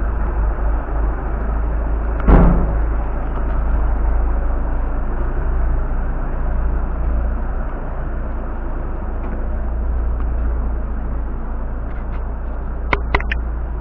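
Outdoor street noise with a steady low rumble, one loud thump about two seconds in and a few sharp clicks near the end.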